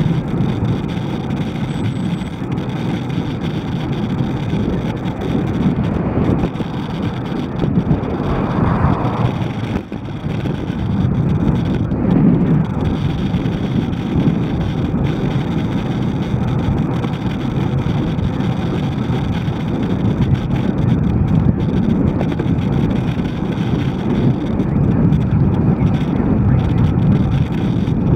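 Steady wind and road noise rushing over the microphone of a bicycle riding along a road, with a short lull about ten seconds in.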